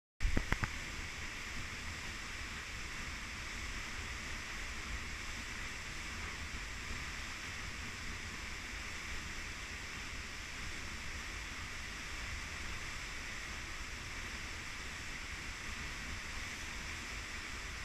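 Waterfall heard from close behind the falling curtain of water: a steady rush of water over a deep rumble. A couple of brief knocks at the very start.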